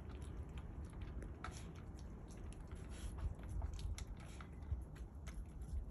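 A cat eating wet cat food: faint, irregular small clicks and smacks of chewing and licking, over a low rumble.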